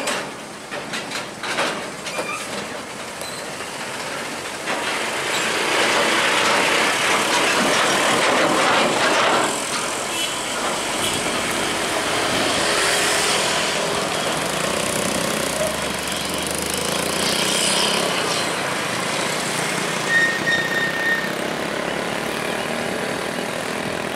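Hino 500 tractor unit hauling a container trailer: its diesel engine and tyres build as it drives past, loudest about six to nine seconds in, then run on steadily as it pulls away. A brief high tone sounds about twenty seconds in.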